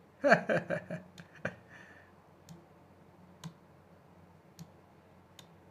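A brief voiced sound from a man in the first second and a half, then a few separate sharp clicks spaced about a second apart.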